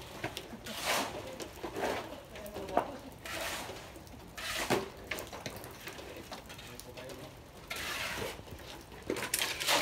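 Steel shovels scraping and scooping wet hand-mixed concrete off a concrete floor and tipping it into basins, a rough scrape every second or two.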